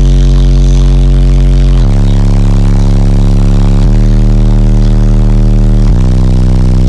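Car audio system with eight 12-inch Massive Audio Summo XL subwoofers playing very loud, deep held bass notes, full of distortion overtones, that step to a new note about every two seconds.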